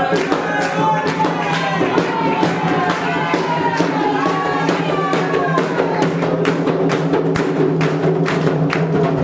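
Candomblé ritual music: atabaque hand drums and percussion beating steadily while a voice sings a chant, stronger in the first half, with hands clapping along. A steady low hum runs underneath.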